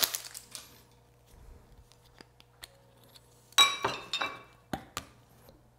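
Glassware clinking as it is handled: a few sharp clicks at the start, then a louder clink that rings briefly about three and a half seconds in, and two light taps near the end.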